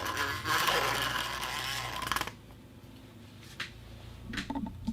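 Plastic tube being twisted, giving a dense crackling of rapid fine clicks for about two seconds, which then stops abruptly; a few separate creaks and clicks follow near the end.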